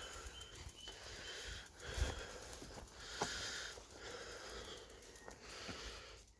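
A person breathing close to the microphone, with about five breaths a second or so apart, over a low rumble.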